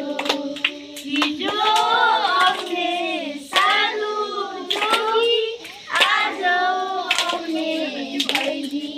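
A group of children singing together, with hand claps along the song.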